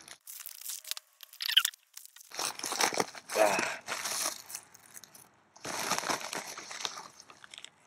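White plastic shipping mailer being pulled open and crinkled by hand, in several bursts of crunchy rustling, the longest in the middle.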